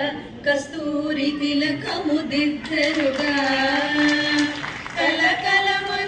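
A woman singing a melodic line, holding long notes that waver and bend in pitch, with short breaks between phrases.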